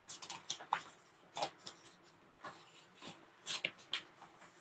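Scattered light clicks and taps at an irregular pace, about a dozen short strokes with a few louder ones clustered near the end.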